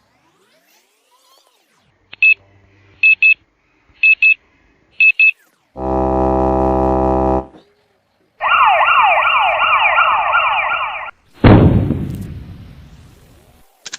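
Electronic sound effects: four short double beeps about a second apart, then a low buzzer for about a second and a half, then a warbling alarm siren, and finally a sudden loud bang that dies away over about two seconds.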